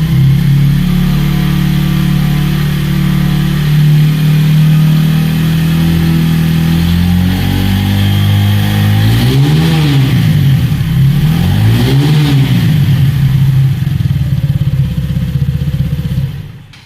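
Single-cylinder motorcycle engine idling, revved twice with the throttle (pitch rising and falling), then stops near the end.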